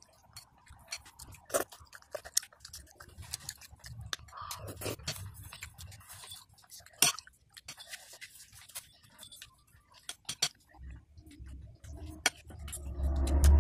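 A child chewing soft chicken rice porridge, with many sharp clicks and clinks of a metal spoon against the plate as he scoops. Near the end a louder, muffled low sound swells up.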